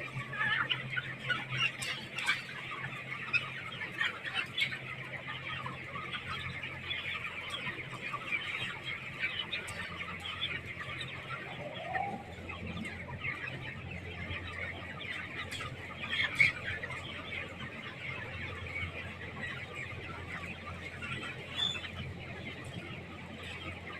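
A large flock of broiler chickens in a poultry house, many birds clucking and chirping at once in a dense, continuous chatter. A steady low hum runs underneath.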